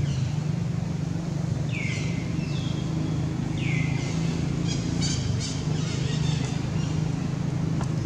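A steady low engine hum running throughout, with a few high whistled bird calls falling in pitch and then a quick run of chirps in the middle.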